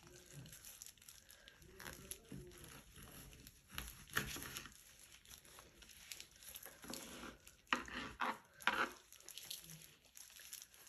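A roasted eggplant being slit with a knife and torn open by hands in disposable plastic gloves: soft crinkling and tearing of the charred skin and gloves, with a few sharper scrapes and rips around the middle and toward the end.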